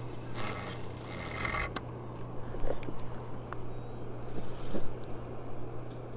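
Spinning reel being cranked to retrieve line, a whirring of about a second near the start that ends in a sharp click, then faint ticks, over a steady low hum.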